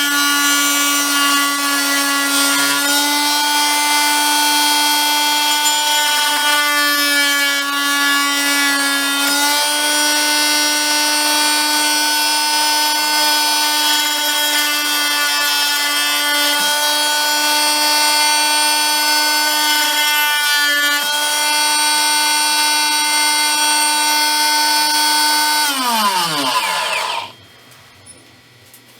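Harbor Freight variable-speed oscillating multi-tool buzzing steadily as its blade cuts into thin plastic, its pitch sagging briefly a few times under load. About 26 s in it is switched off and winds down with a falling pitch until it stops.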